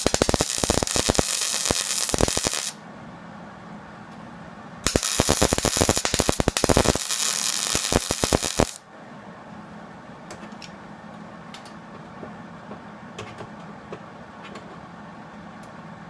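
Welding arc crackling while plug welds are laid into a replacement rocker panel, in two bursts of about three and four seconds with a short pause between. After the second weld only a faint background with a few light ticks remains.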